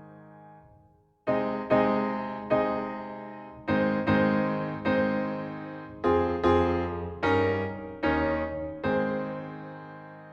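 Background music: piano, notes and chords each struck and dying away, after a brief pause near the start.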